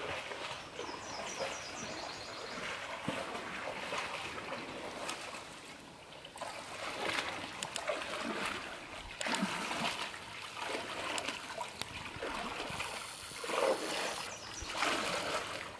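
Water splashing and trickling, with louder splashes coming unevenly every few seconds.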